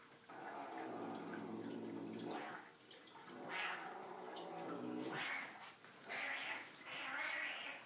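Savannah cats play-fighting and making cat vocal sounds: a drawn-out low growl over the first couple of seconds, then several short, harsher cries.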